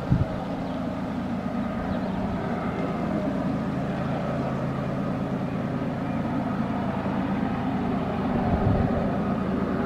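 Diesel-electric freight locomotive running as it approaches: a steady engine drone that grows slowly louder. A couple of brief low thumps come near the start and about a second before the end.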